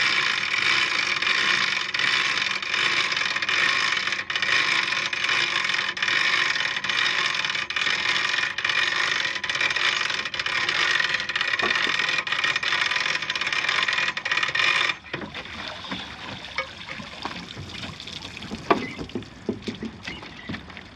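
A boat's mechanical hoist runs steadily and loudly as it lifts stacked five-tier shellfish cultivation baskets out of the sea, then cuts off abruptly about three quarters of the way in. After that come scattered knocks and water dripping off the baskets.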